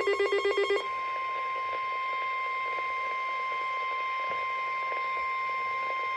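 A weather radio's electronic alarm trilling rapidly, about ten beeps a second, then switching less than a second in to a single steady alert tone: the NOAA Weather Radio 1050 Hz warning alarm that precedes a severe thunderstorm warning broadcast.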